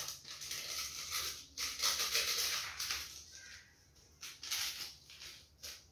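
Crinkling and rustling of a small plastic sachet of powdered drink mix being handled and opened, in irregular bursts with a few light clicks and a quieter pause just before the end.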